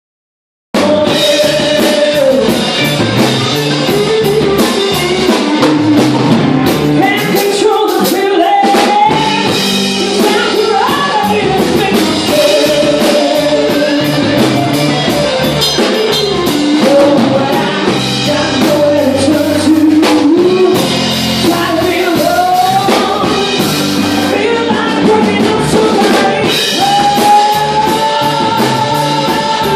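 A blues band playing live: drum kit and guitar with a sung vocal line. The music cuts in abruptly just under a second in.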